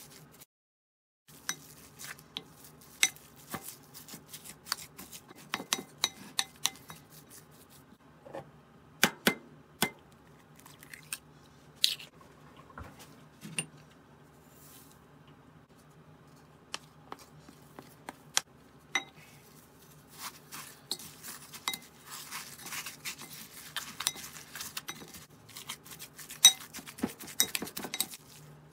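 Spoon and wooden spatula working ground meat in a glass bowl, knocking and clinking irregularly against the glass, the strokes coming faster and closer together near the end.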